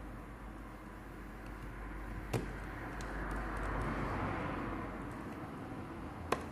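Road-traffic noise, swelling as a vehicle passes about halfway through, with two sharp clicks, one about two seconds in and one near the end.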